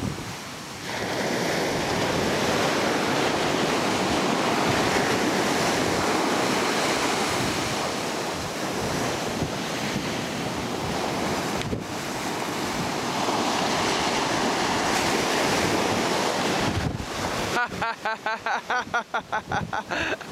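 Ocean surf washing onto the shore, with wind buffeting the microphone. For the last two or three seconds the sound turns choppy, fluttering quickly up and down.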